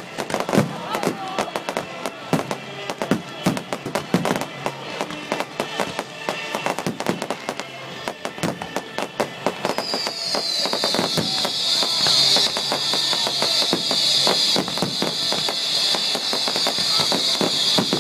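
Fireworks finale: a dense, rapid barrage of bangs and crackles from many shells at once. About halfway through, a steady high-pitched hiss joins in and carries on over the bangs, getting louder.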